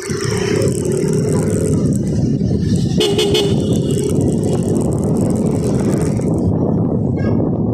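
Steady road and wind rumble from riding through city traffic. A vehicle horn sounds for about two seconds at the start and again briefly about three seconds in.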